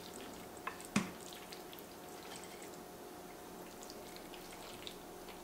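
Two wooden utensils tossing saucy egg noodles in a bowl: faint wet squelches and small clicks, with one sharper click about a second in, over a faint steady hum.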